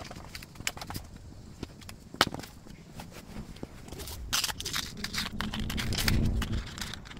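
Desk handling sounds while packing jewellery: a few small clicks and taps, then paper card rustling and light handling of a metal necklace chain, busiest near the end.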